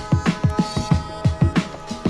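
Instrumental electronic hip-hop beat: quick deep bass notes that each drop in pitch, several a second, under held synth chords, with sharp drum hits on top.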